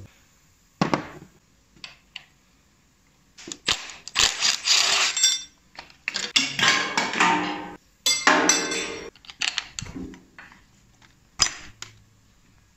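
Cordless impact wrench hammering bolts loose on a BMW M60 V8 engine during teardown. It runs in three bursts of a second or two each, a motor whine under a fast rattle, with a few single metal clinks before and after.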